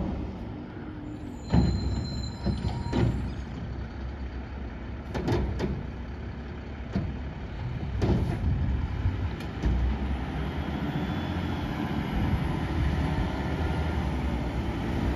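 Mack LEU garbage truck's diesel engine running as the truck works down the street, with several loud clanks and bangs from the truck, the first a little over a second in. The engine's rumble grows heavier from about ten seconds in as the truck pulls closer.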